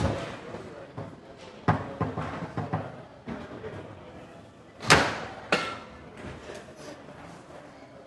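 Foosball table in play: the ball and the rods' players striking in quick, sharp clacks and knocks. A loud slam comes about five seconds in, with another about half a second later, as a hard shot ends the point.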